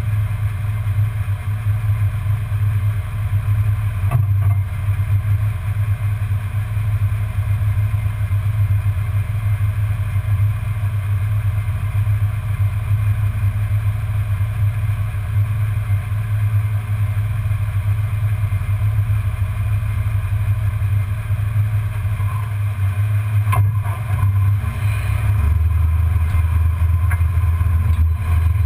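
1994 Ford Bronco's V8 engine running at low revs, heard as a steady exhaust note right beside the tailpipe under the truck. The note changes slightly near the end.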